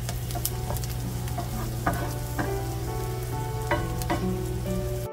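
Chopped onion and garlic sizzling in butter and oil in a frying pan, stirred with a wooden spoon. The spoon scrapes through them and gives a few light knocks against the pan.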